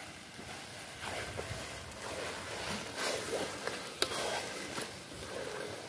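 Metal spatula stirring thick mashed banana flower and fried hilsa fish in a metal karahi: uneven scraping and squishing, with one sharp clink about four seconds in.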